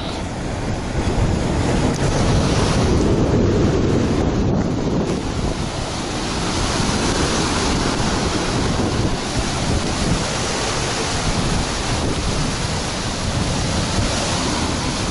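Rough surf breaking and washing over the rocks in a continuous rush, with wind buffeting the microphone.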